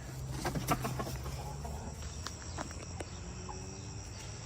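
Crickets chirping steadily, with a few sharp clicks and knocks, clustered about half a second to a second in and scattered singly later.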